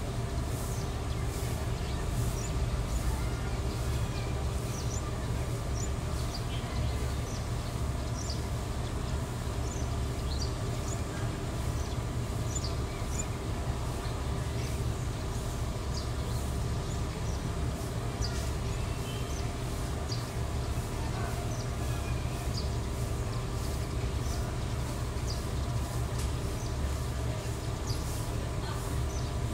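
Diesel passenger train standing at the platform with its engine idling, a steady low rumble and hum. Short high bird chirps come and go over it.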